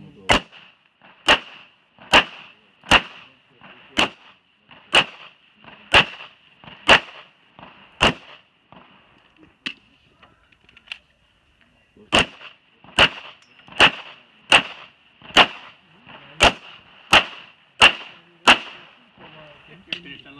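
Glock 17 9mm pistol firing a string of single shots, about one a second: some nine shots, a pause of about four seconds, then some nine more at a slightly quicker pace.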